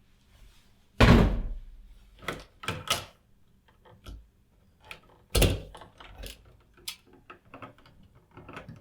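Knocks and clicks of a wall switch and its cover plate being handled and pulled out of the electrical box: two loud thunks, about a second in and just past five seconds, with lighter clicks between and after.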